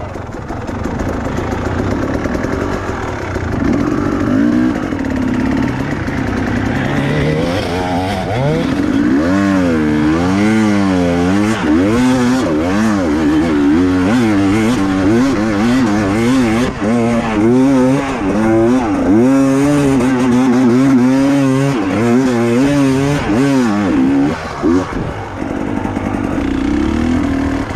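Enduro dirt bike engine running on a trail. After about eight seconds its pitch starts swinging up and down about once a second as the throttle is worked on and off, and this goes on until near the end.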